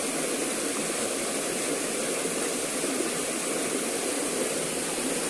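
Steady rushing of river water tumbling over a small cascade.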